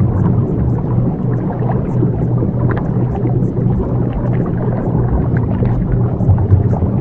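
Background bed of a subliminal audio track: a steady low drone with a noisy, rumbling wash and scattered faint crackles above it, like rain.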